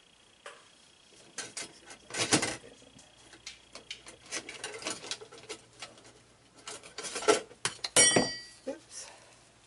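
Kitchen utensils and containers being handled and set down, a run of irregular clicks and clatters, with a ringing clink about eight seconds in.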